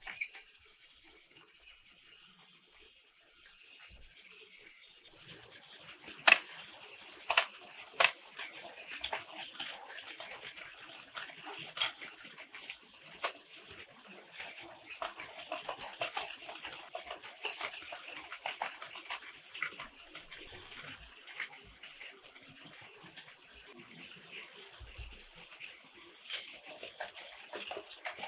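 Toy train running along its track with a dense, steady rattling clatter. About six to eight seconds in, three sharp loud clicks stand out above it.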